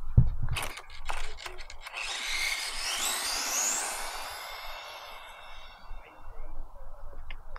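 Micro RC monster truck's Furitek Mini Godzilla brushless motor whining as the truck accelerates flat out, the pitch rising steadily for a few seconds and then fading as it pulls away. A few sharp knocks and a thump come in the first second or so.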